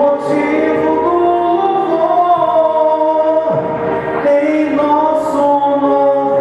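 Gospel song sung with electronic keyboard accompaniment, the voices holding long notes.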